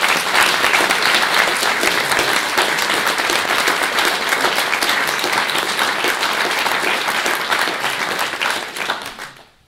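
Audience applauding with many hands clapping at once, steady and loud, then dying away near the end.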